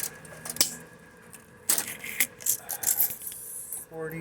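Metal tape measure being pulled out and handled against the furniture: scattered light metallic clicks and rattles, a few sharp single clicks among them.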